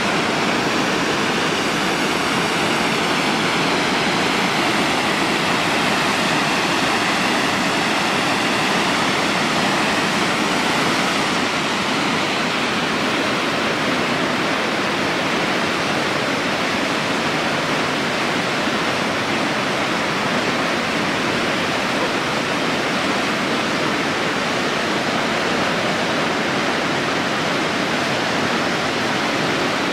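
Waterfall on a mountain creek: a steady, even rush of water cascading over rock ledges.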